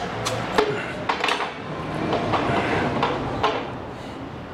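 Sharp metallic clicks, knocks and scraping from working at the cap of a glass Negro Modelo beer bottle, trying to pry it off.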